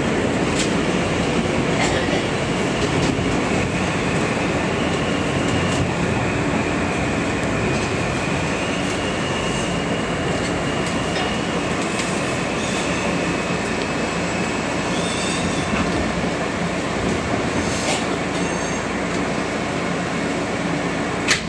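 R160A subway train running into a station and braking to a stop: steady rumble of wheels and car body, with a thin high squeal through the middle and scattered clicks. A single sharp click comes near the end.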